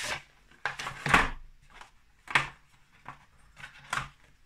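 Handling noise from a small cardboard product box and its moulded tray as parts are picked out: about four short rustles and knocks, the loudest about a second in, with quiet gaps between.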